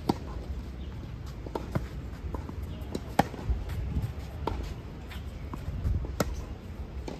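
Tennis rally on a clay court: sharp pops of the ball struck by the rackets, the loudest about every one and a half to three seconds, with softer knocks of the ball bouncing in between, over a low steady outdoor rumble.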